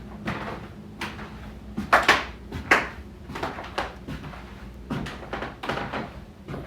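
Irregular indoor knocks and clatter, as of things being handled and set down, with the loudest bumps about two seconds in and just under three seconds in.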